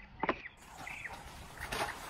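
Faint outdoor background hiss, with a short high chirp about a second in.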